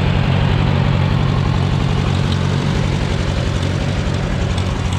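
A vehicle engine running at a steady speed: a constant low hum under an even rush of broader noise.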